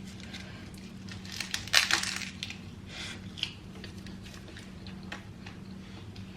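Scattered soft crackles and crunches from a triangle kimbap wrapped in crispy nori as it is handled, unwrapped and eaten. The loudest crunch comes about two seconds in, with a steady low hum underneath.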